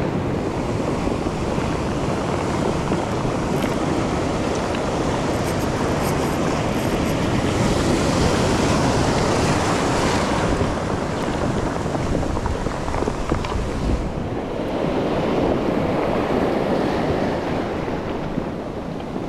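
Ocean surf breaking and washing up over a pebble beach, its hiss swelling as each wave comes in, with wind on the microphone.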